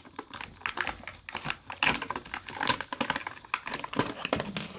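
Plastic packaging crinkling and rustling irregularly as jewellery is unwrapped and pulled out by hand.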